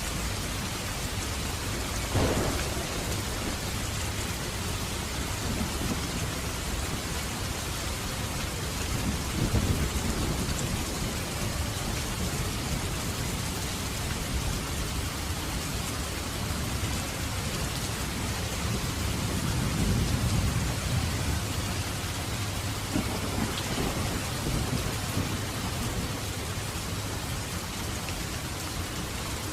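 Heavy rain falling steadily. Deep rumbles rise through it several times: a sudden one about two seconds in, and longer swells around ten and twenty seconds in.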